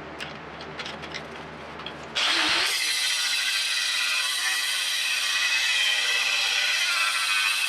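An electric grinder starts up about two seconds in and grinds steel with a steady loud rasping whine, flattening the face of a forged piece. Before it starts, a low hum and a few light clicks.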